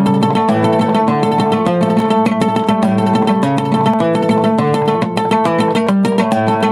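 Venezuelan bandola llanera played solo with a pick: a fast, unbroken run of picked notes with low bass notes under the melody.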